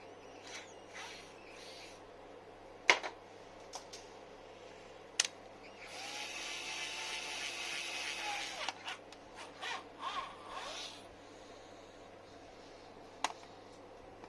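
A small power tool runs for about three seconds in the middle, its motor pitch bending up as it starts and down as it stops. Around it come a few sharp clicks and light knocks of tools on metal.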